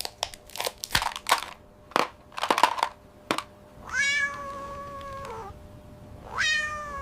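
A cat meows twice: a long meow about four seconds in that holds and then falls away, and a shorter one near the end. Before them comes a run of sharp clicks and taps.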